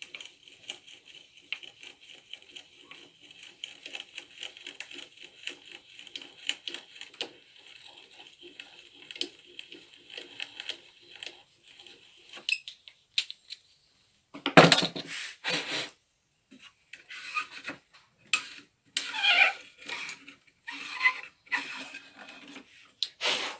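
An old hand-cranked drill boring into a wooden axe head, its gears and bit making a fast, steady clicking rattle for about twelve seconds. After a short pause come a few loud knocks and then irregular clattering of wood and tools being handled.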